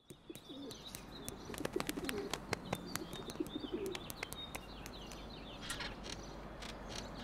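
Pigeons cooing in low warbling calls through the first four seconds or so, with small birds chirping high and many sharp taps of beaks pecking on pavement.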